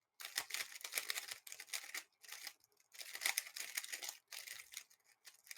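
A plastic 3x3 speed cube being turned fast: a dense, faint run of clicks and rattles of the layers, with short pauses between bursts of turning.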